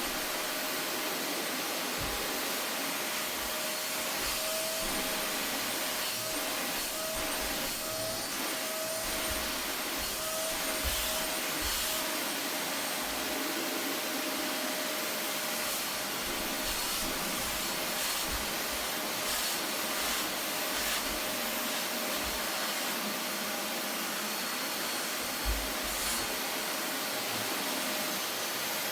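Vacuum cleaner running steadily: a constant motor whine over the rush of air, with a few short low knocks.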